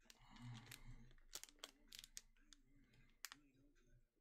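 Faint crinkling and crackling of a Panini Prizm trading-card pack's wrapper being handled and opened, with a scatter of short, sharp clicks.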